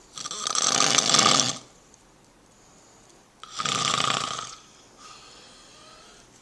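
A person snoring loudly: two long snores, the first about a second and a half long, the second about a second, with a short pause between.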